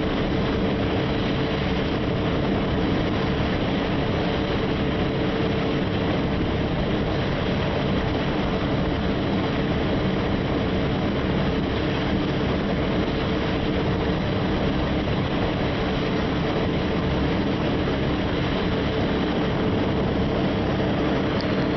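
Twin Evinrude 150 outboard motors running steadily at cruising speed, a constant drone held at one pitch, mixed with rushing wind and water from the boat underway.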